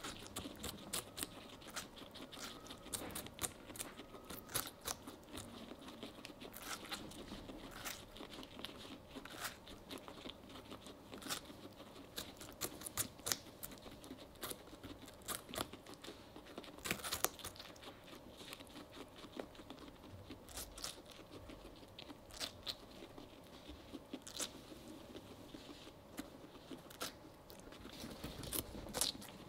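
Guinea pigs biting into and chewing a slice of watermelon, close up: a quick, irregular run of small sharp bites and chews.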